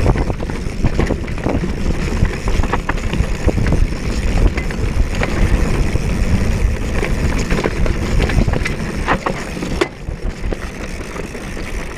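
Mountain bike riding a dirt trail: tyre noise and wind on the microphone, with frequent clicks and knocks as the bike rattles over bumps.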